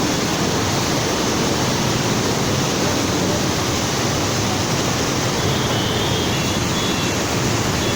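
Floodwater rushing in a steady, loud, unbroken stream.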